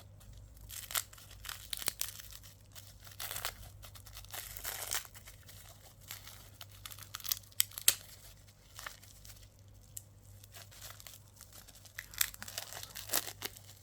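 Packaging being crinkled and torn open by hand, in irregular scattered crackles with a few small clicks and rustles.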